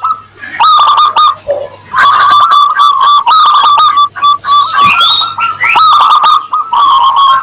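Zebra dove (perkutut) singing: a rapid string of short, clear cooing notes, pausing briefly twice in the first two seconds and then running on.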